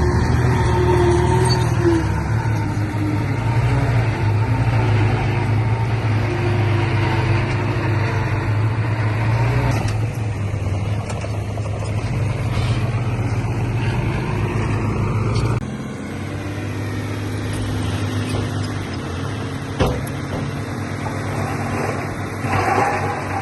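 Diesel engine of heavy earthmoving equipment running steadily, then dropping abruptly to a lower, quieter note about two-thirds of the way through. A single sharp knock comes a few seconds later.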